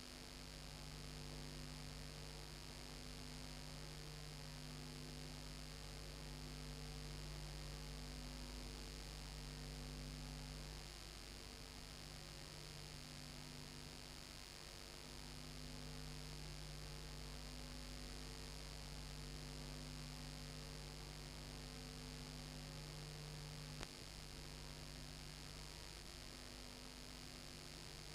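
Steady low electrical mains hum with faint hiss, with a single faint click a few seconds before the end.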